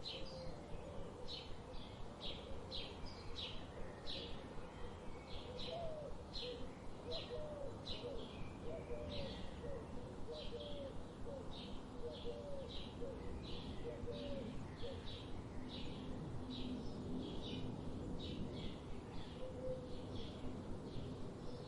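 Birds singing: one bird repeats a short high chirp about twice a second, and a lower series of short call notes joins in for several seconds in the middle.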